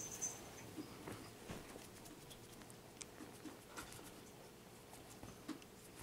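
Faint, scattered light taps and pattering from a five-week-old Bengal kitten moving about.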